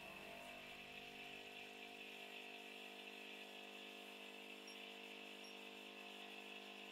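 Small benchtop milling machine running steadily and faintly while its end mill cuts a shallow recess into a metal plate.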